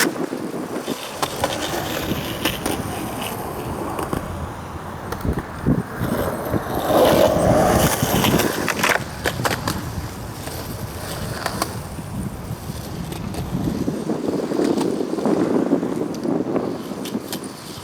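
Skateboard rolling, its wheels rumbling steadily over the ground, with short clacks and knocks from the board throughout and a louder stretch partway through.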